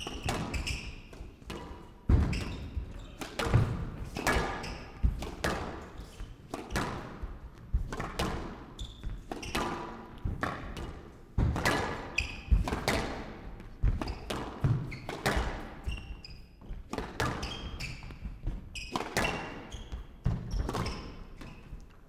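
A fast professional squash rally: racket strikes and the ball cracking off the court walls, about one to two sharp hits a second, each with a short ringing tail.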